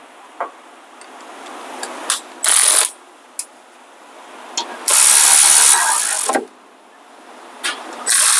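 Snap-on cordless electric ratchet running in bursts: a short one about two and a half seconds in, a longer one of about a second and a half near the middle, and another starting near the end, with small metallic clicks between them.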